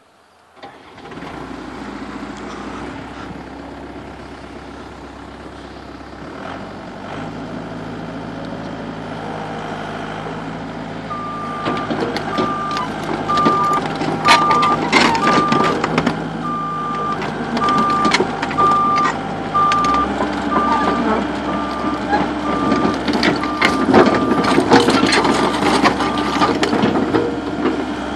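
Komatsu PC120LC-6 excavator's diesel engine starting up about a second in, then running and revving up in steps. Through the middle and later part its travel alarm beeps steadily and metal clanks sound as the machine is operated.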